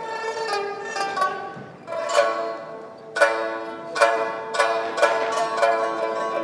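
Music of plucked strings, with notes that ring on after each pluck; it thins out in the first half, then the plucks come thick and fast from about three seconds in.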